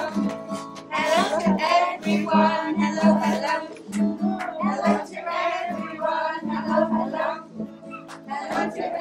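Voices singing a song together over a musical accompaniment with a regular beat.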